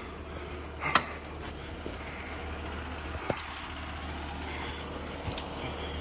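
A heavy diesel engine running steadily, a low even hum, with a sharp knock about a second in and a couple of fainter clicks later.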